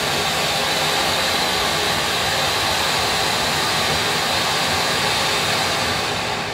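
Weco Bugano Color Stars firework fountain spraying sparks with a loud, steady hiss that starts to die down near the end.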